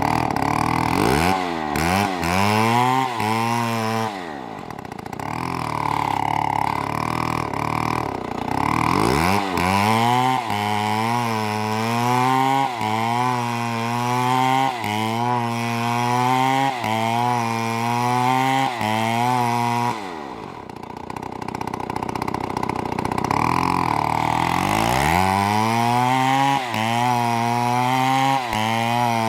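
Two-stroke chainsaw revving up and cutting wood, its engine pitch dipping and recovering about once a second as it works under load. Twice it drops back to a lower idle for a few seconds before being revved up again.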